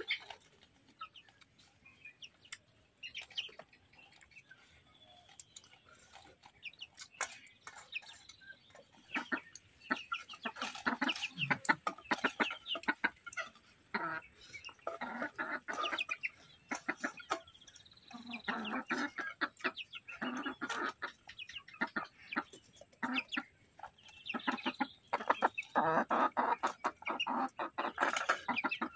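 Chickens clucking in several choppy bouts, with many small clicks in between.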